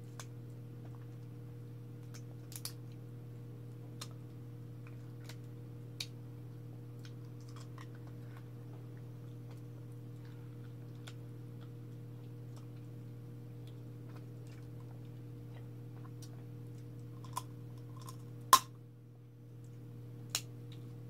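Scattered small clicks and cracks of cooked crab shell being picked apart by hand, with one much louder sharp crack near the end, over a steady low hum.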